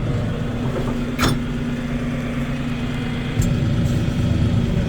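Farm tractor engine running steadily, with a sharp click about a second in; the engine grows louder about three and a half seconds in.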